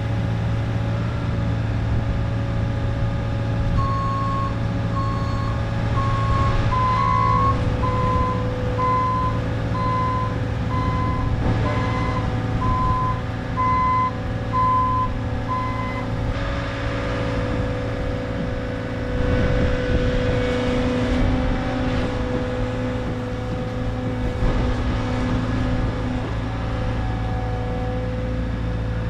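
Bobcat T66 compact track loader's diesel engine running steadily while it carries a load, with its backup alarm beeping about once a second from about four seconds in until about sixteen seconds in.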